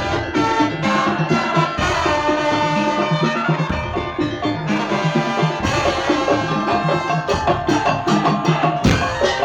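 Daul (tong-tong) music: a Madurese percussion ensemble of wooden slit drums, drums and tuned metal percussion playing a fast, dense rhythmic piece with a pitched melody over it.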